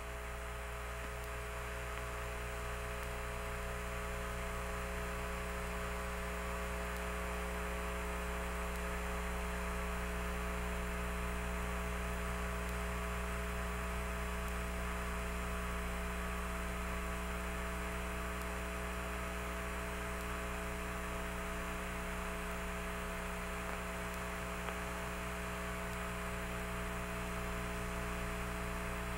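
Steady electrical hum with static hiss and several faint steady tones on an open Apollo air-to-ground radio channel, with no voice on the loop.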